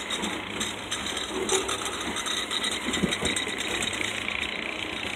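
Freight train of open-top gondola cars rolling past: a steady rumble of steel wheels on rail with irregular clicks and clanks, and one louder knock about three seconds in.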